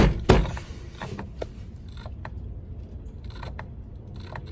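Two sharp knocks as the worn wiper motor of a 1991 Ford F-150 is struck, then scattered light mechanical clicks and ticks. The motor is stalled: it is powered and feels like it is trying but does not turn, and the owner takes it to be old and corroded.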